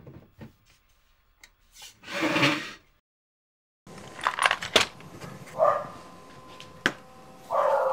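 Plastic cover of an Anycubic resin 3D printer being handled and lifted, with small knocks and a scraping, sliding sound about two seconds in. After a cut come scattered workbench clicks and knocks.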